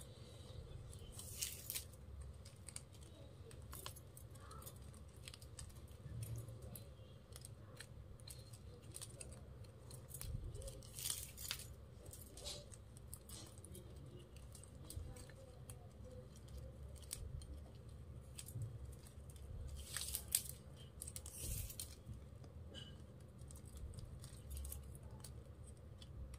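Faint rustling, scraping and clicking of flat plastic wire strands being woven and pulled tight by hand, in irregular bursts over a low steady hum.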